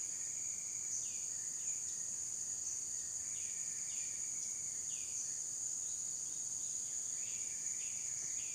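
Steady high-pitched insect chorus of crickets. Over it runs a repeated short animal call that drops in pitch and then holds, several times a second or so.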